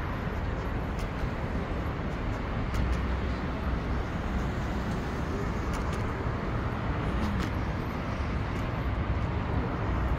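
Steady rumble of road traffic, cars, vans and buses passing on a wide multi-lane street, heard from an elevated walkway above it.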